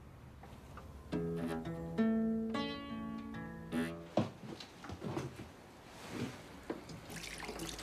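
A guitar plays a short run of chords for about three seconds, starting about a second in, with the chord changing roughly every half second, and then stops.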